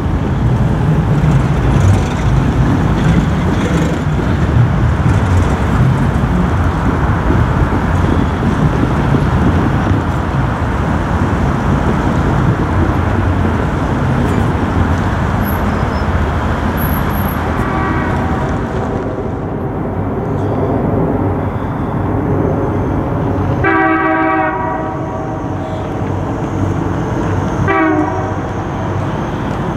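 A passing BNSF diesel locomotive and its train rumble by for the first half. Then the approaching EMD SD70MACe sounds its chime horn in the grade-crossing pattern: a faint long blast a little past halfway, a louder long blast, then a short toot near the end.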